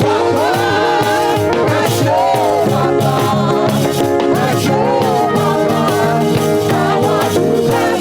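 Live church band playing an upbeat praise song with voices singing the chorus over it, steady and loud.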